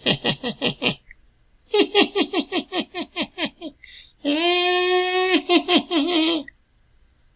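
Evil clown laugh sound effect: a short run of quick 'ha-ha' syllables, then a longer run of about a dozen, each falling in pitch, ending in a long held, drawn-out cackle note that wavers at the end.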